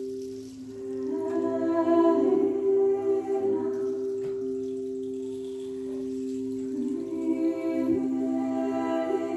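Quartz crystal singing bowls sounding two steady, sustained tones. A wordless voice sings long notes over them from about a second in, and again near the end.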